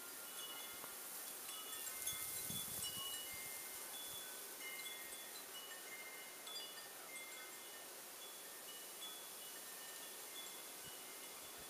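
Wind chimes ringing irregularly in the wind, a few clear notes at a time at several pitches, over a soft hiss of wind that swells briefly about two seconds in.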